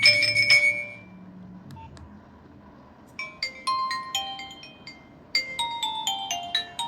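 Nokia 1661 mobile phone's loudspeaker playing ringtones. One melody dies away in the first second, and after a pause of about two seconds a new ringtone starts, a quick run of short bell-like notes.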